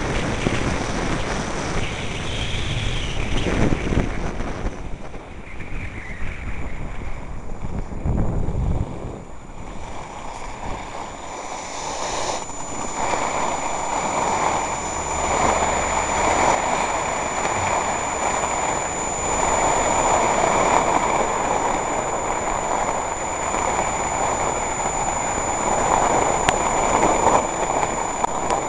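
Wind buffeting the camera microphone, heavy and gusting for the first ten seconds or so, mixed with skis scraping on snow during the descent. After that it settles into a steadier rush of wind.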